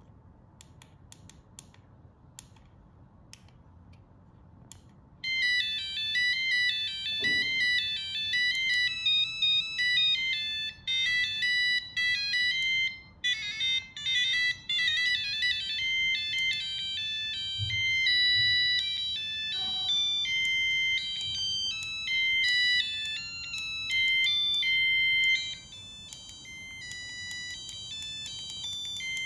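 Electronic beeping alarm melodies from a MiOYOOW TJ-56-428 DIY LED clock kit. A few faint short beeps come first. About five seconds in a tune starts, and it breaks off and restarts with different tunes as the alarm music is cycled. Near the end it steps down to a quieter volume.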